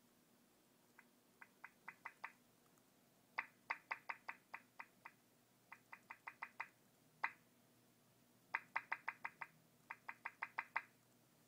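Apple MacBook Pro's volume-change feedback pops, played in quick runs of five to eight as the volume key is pressed repeatedly, each pop in a run louder than the last, with a single pop about seven seconds in. The laptop is running and answering key presses even though its screen shows no picture.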